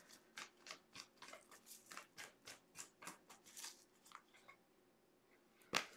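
Tarot cards being shuffled by hand: faint, quick flicks of cards slipping against each other, about five a second, stopping about four and a half seconds in, then one sharper tap near the end.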